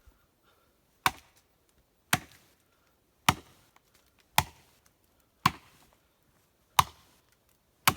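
Axe biting into a standing tree trunk, seven strikes about a second apart, chopping wedge-shaped chips out of the felling notch.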